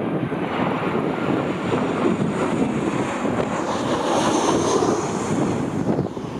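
Strong wind buffeting the microphone, with a passing airliner's engines faintly audible as a high whine that rises and falls about four seconds in.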